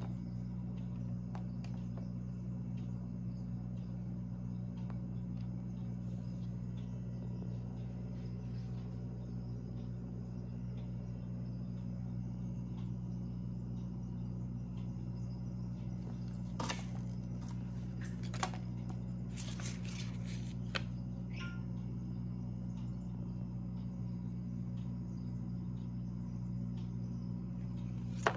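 Steady low hum of room noise, with a cluster of sharp clicks about two-thirds of the way through and one more at the very end as a small plastic-and-metal tripod is handled.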